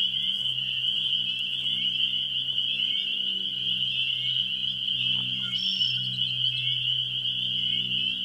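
A dense chorus of calling frogs, a steady high-pitched trilling, over a low steady hum.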